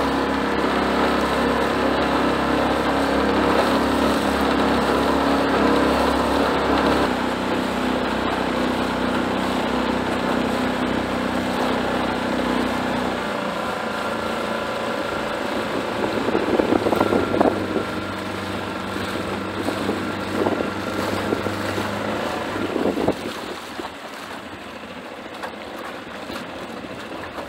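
Small 6 HP Tohatsu outboard motor running steadily as the boat moves over choppy water, its engine note shifting about seven seconds in and again halfway through. Wind on the microphone and water splashing now and then; the motor gets quieter near the end.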